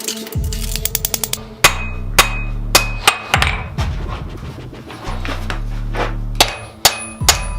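Hammer blows on steel at the anvil: seven sharp, ringing strikes in two groups, a few seconds apart, over a low steady hum.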